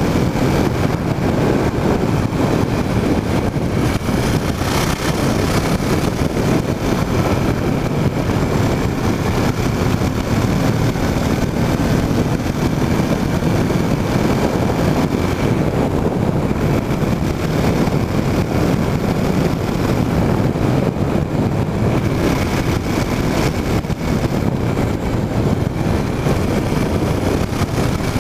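KTM Duke motorcycle running steadily at road speed, its engine mixed with wind and road noise on a tank-mounted microphone.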